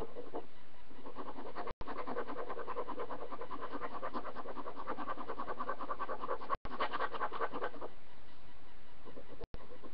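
Pencil scratching on paper in quick, continuous drawing strokes. It cuts out abruptly to silence three times for a split second.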